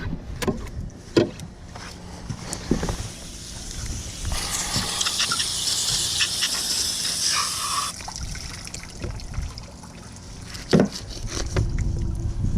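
Water running steadily for about three and a half seconds in the middle, with scattered knocks and clicks before and after.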